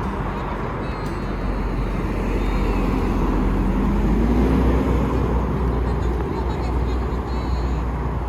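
Steady outdoor noise with a heavy low rumble, like street traffic, under faint background voices.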